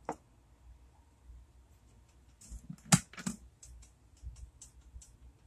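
A few sharp clicks and light knocks from kitchen containers and utensils being handled off to the side, the loudest pair about three seconds in, followed by a string of small ticks.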